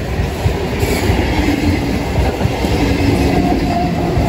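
Steady loud rumble of a passing train, with a faint squeal near the end.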